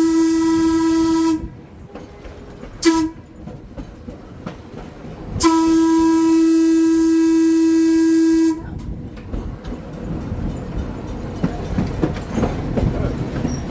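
Trolley's horn sounding a long blast, a short one, then a long one, all on one steady pitch: the close of a long-long-short-long grade-crossing signal. After that the rumble and clatter of the trolley's wheels on the rails builds.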